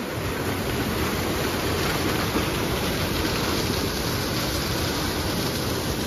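Waterfall rushing steadily, an even hiss of falling water.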